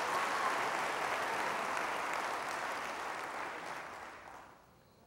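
Church congregation applauding, the clapping slowly dying away and ending about four and a half seconds in.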